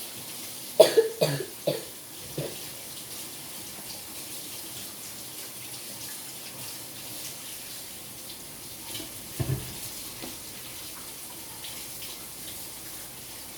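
Sink tap running steadily while hands are rinsed under the water. A few short, loud sounds come about a second in and again around nine and a half seconds.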